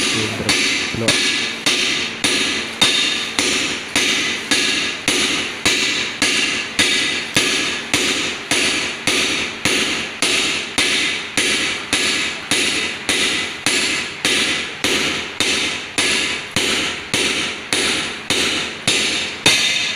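Steady hammer blows on a metal driver cap, about two a second, each with a metallic ring, driving a cylinder liner into an Isuzu Panther engine block.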